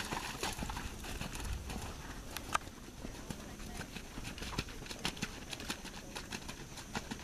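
Horse trotting on wet sand arena footing, its hooves striking in a steady rhythm; one strike about two and a half seconds in stands out louder.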